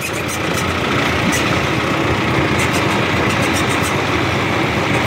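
Mahindra Arjun 605 DI tractor's turbocharged four-cylinder diesel engine running steadily while the tractor drives slowly, heard from the driver's seat.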